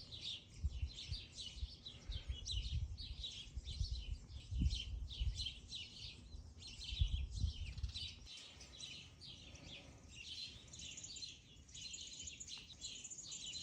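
Birds chirping, a continuous run of short high chirps several times a second. Low rumbling bumps sit underneath for roughly the first eight seconds, then stop.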